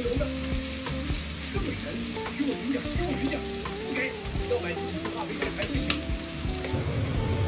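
River shrimp frying in hot oil with a steady sizzle, stirred in the pan with a spatula that gives short scrapes and taps.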